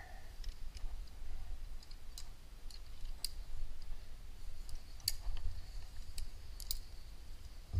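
Aluminium carabiners and quickdraws clicking and clinking in scattered sharp clicks as a sport climber handles the gear while being lowered on the rope. A steady low rumble runs underneath.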